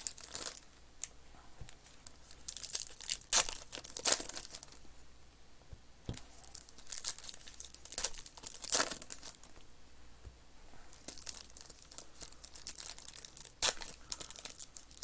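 Panini Flux basketball card packs being torn open, their wrappers crinkling, in irregular tearing and rustling bursts.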